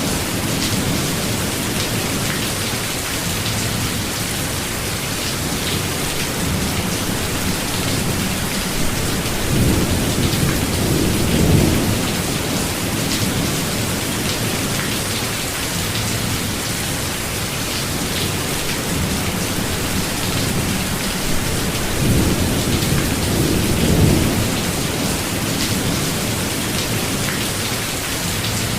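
Steady heavy rain, with low rolls of thunder rumbling in twice: about a third of the way in and again about four-fifths through.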